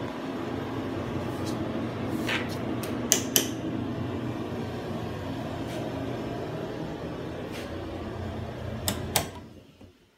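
A steady mechanical hum in a small room, with several sharp clicks and knocks. Two close clicks come about nine seconds in, and the hum dies away just after them.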